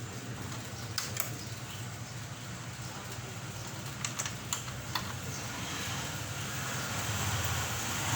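A few sharp clicks, twice about a second in and a cluster around four to five seconds in, over a steady low hum: hands pressing controls on a mini stereo system being powered up after repair.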